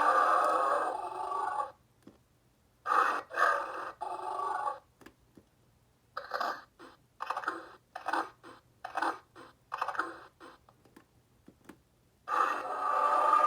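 Electronic dinosaur roars and calls from a Lost World: Jurassic Park Bull T. rex toy's sound unit, heard through a small speaker. A long roar ends about two seconds in, two shorter calls follow about a second later, then comes a rapid run of short clipped grunts, and a new long roar starts near the end.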